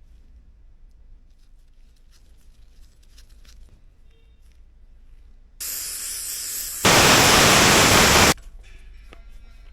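A loud, even rushing hiss that starts a little past halfway, jumps louder about a second later, and cuts off suddenly after about a second and a half.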